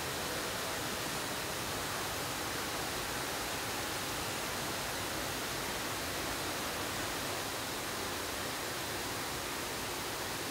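Steady hiss of water spraying from rows of overhead nozzles in a car-factory water-test booth, drenching a Land Rover Defender's body. This is the vehicle's water-leak test.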